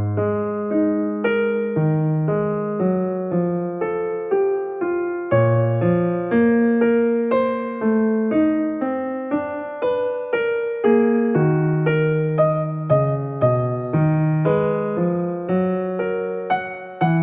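Soft background piano music: a steady, gentle flow of notes, a few a second.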